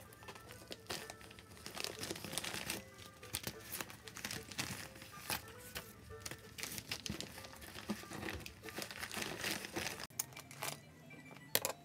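Paper sheets rustling and crinkling as sticker sheets and memo-pad pages are handled, shuffled and stacked, in many short irregular rustles, over quiet background music.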